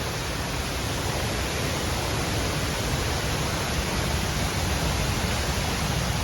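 Steady rushing noise, even from deep to high pitch, with no separate knocks or calls standing out.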